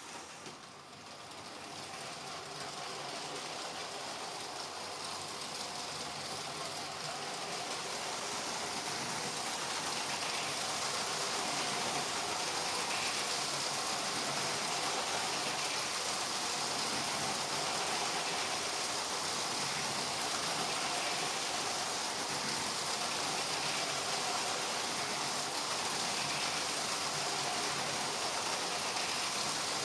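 LEGO trains running on plastic track, a steady whirring rattle of motors and wheels. It grows louder over the first ten seconds or so, then holds steady.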